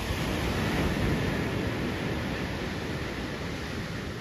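Rushing noise of surf and wind on the open beach, swelling about a second in and slowly easing off.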